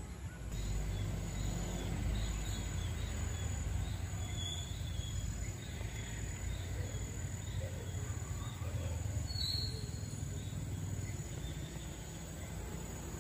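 Outdoor ambience: a low rumble under a high, regularly pulsing insect trill, with a few short bird chirps.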